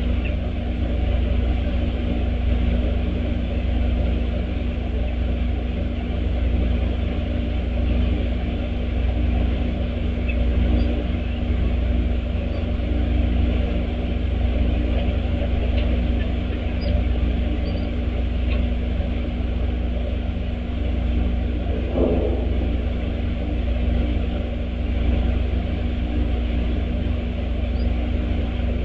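Steady low outdoor rumble with a constant hum, and a few faint, short high chirps from small birds now and then.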